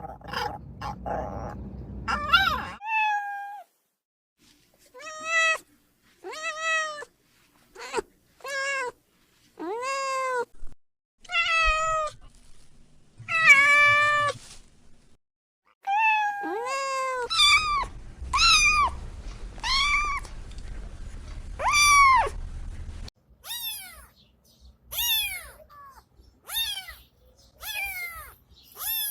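A dog whining and yipping for a couple of seconds, then a run of domestic cats meowing: about twenty separate meows from several cats, each rising then falling in pitch. The meows are higher and thinner in the last few seconds.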